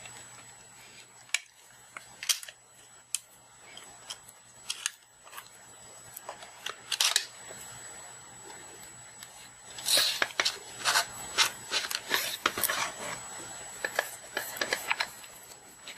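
Hands handling a plastic tablet and its new glass touchscreen digitiser while lining the panel up and pressing it into place. Scattered light clicks, taps and rubbing scrapes, busiest about ten seconds in, over a faint steady high whine.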